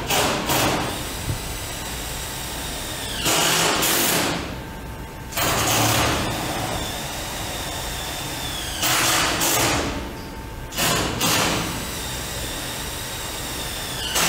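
Cordless drill run in short bursts, five times, each under a second, while driving fasteners into the heater assembly.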